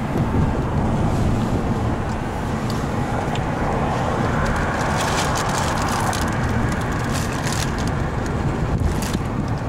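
Steady road and engine noise inside a moving car's cabin: a low rumble with tyre and wind noise, and a few light ticks and rattles scattered through it.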